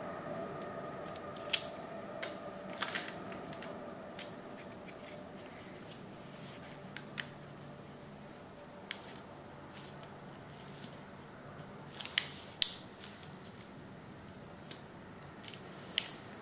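A sheet of origami paper crackling and rustling under the fingers as it is folded and pressed into creases, in scattered crisp crackles, the loudest a few about twelve seconds in and one near the end. A faint steady hum lies underneath.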